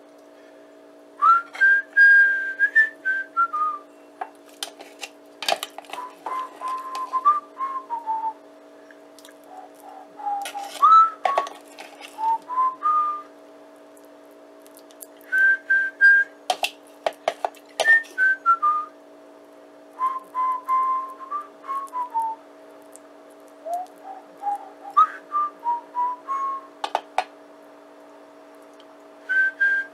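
A whistled melody of short notes and glides over a steady low drone, with a few sharp clicks scattered through it.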